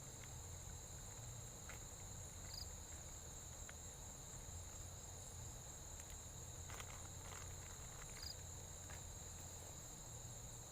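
A faint, steady high-pitched insect chorus trilling without a break, with a few soft clicks about two-thirds of the way in.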